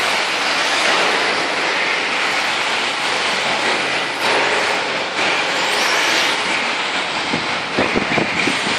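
Radio-controlled off-road cars running on a packed-dirt track: a steady hiss of tyres and drivetrain on loose dirt. A few knocks near the end.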